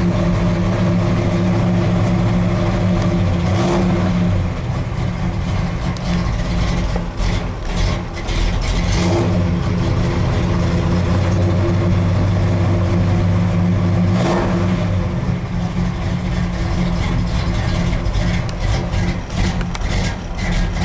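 Ford F100 pickup's engine running at idle after a cold start, having sat for about two months. The note is steady, shifting in tone a few times, about 4, 9 and 14 seconds in.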